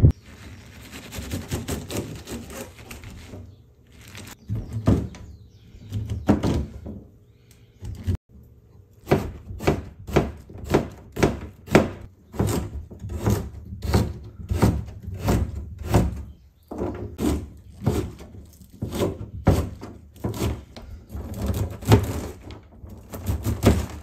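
Kitchen knife chopping on a cutting board, even strikes about two a second, cutting through onion and then bean sprouts. The first few seconds hold only a steady hiss.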